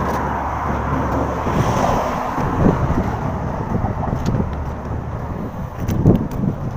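Outdoor street ambience: a steady rumble of road traffic, with wind on the microphone. A few faint voices and small clicks come through in the second half.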